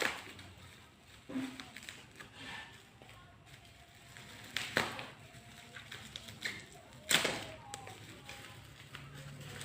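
Hands working open the packaging of a telescopic fishing rod: scattered sharp clicks, knocks and rustles, the loudest about seven seconds in.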